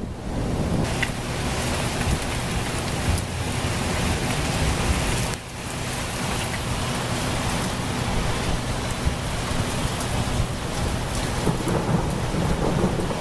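Heavy rain pouring in a thunderstorm, a dense steady hiss over a low rumble of thunder; the sound dips briefly about five seconds in.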